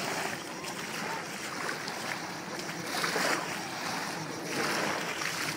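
Small waves washing onto a sandy beach, the hiss of the surf swelling and falling every second or two.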